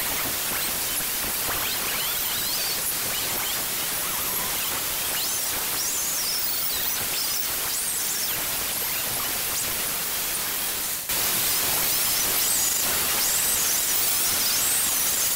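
Angle grinder with a Scotch-Brite sanding disc grinding a steel machete blade: a steady harsh hiss with a faint wavering high whine. It steps up a little louder about eleven seconds in.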